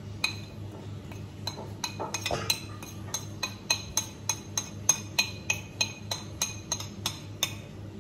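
Spoon clinking and scraping against a plate, knocking chopped spring onions off into a stainless steel mixing bowl: a run of quick clinks, about three a second, starting about a second and a half in.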